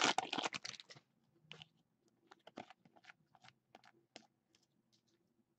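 Foil trading-card pack wrapper crinkling as it is torn open, stopping about a second in. Then scattered light clicks and ticks as the football cards are spread and flipped through by hand.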